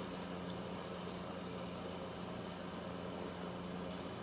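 Steady low mechanical hum with a constant pitch. A few faint light clicks come about half a second in and again about a second in, from pliers working a small gold jump ring.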